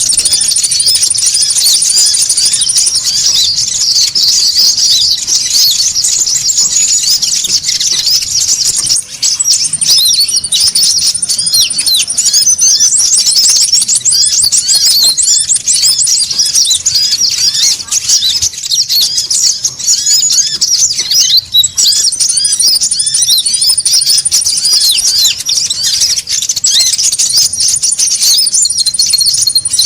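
Sunbirds (kolibri ninja) calling noisily and continuously: a dense tangle of rapid, high chirps, with a very high, fast trill cutting in several times.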